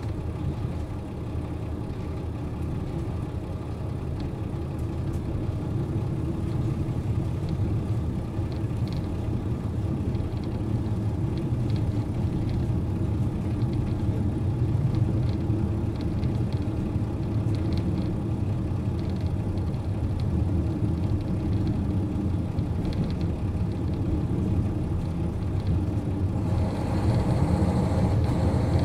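KiHa 40 series diesel railcar running, its diesel engine droning steadily over a low rumble, with faint scattered clicks. About 26 seconds in the sound grows louder and brighter.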